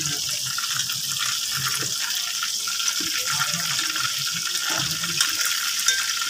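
Spicy coated fish pieces deep-frying in hot oil in a metal pan, a steady high sizzle as the golden-brown, finished pieces are lifted out with a wire skimmer.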